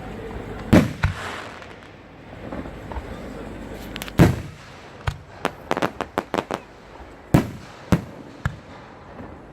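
Fireworks going off: several loud booming bursts, with a quick run of crackling pops in the middle.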